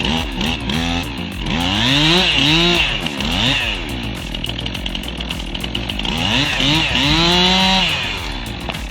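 Chainsaw cutting a tree, its engine revving up and falling back again and again, loudest around two and seven and a half seconds in.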